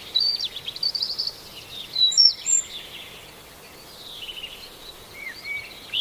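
Several birds chirping and singing in short calls and trills over a faint steady hiss, the loudest chirps about two seconds in.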